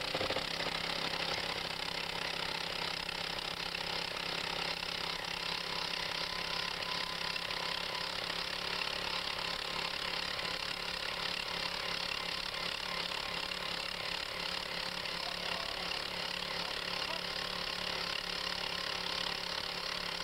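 Gas-powered two-man post-hole auger running steadily at a constant speed, its bit turning in frozen clay without biting in.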